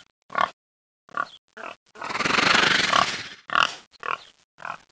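Wild boar grunts: a string of short, separate grunts, with one longer, rougher call lasting about a second that starts about two seconds in.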